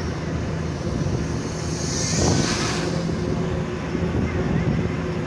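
Bus engine running steadily as the bus drives along, with road and wind noise coming in through an open window. A brief louder rush of noise comes about two seconds in.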